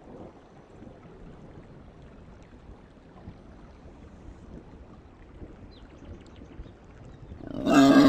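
Quiet wet outdoor background with faint rain, then about seven and a half seconds in a loud, deep wild boar call, an added sound effect, starts suddenly and holds steady.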